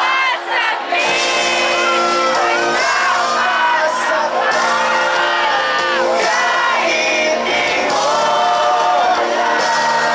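Live pop-rock band playing a song over a concert sound system, with a singer's voice carried through the PA. Voices of the crowd are mixed in close to the microphone.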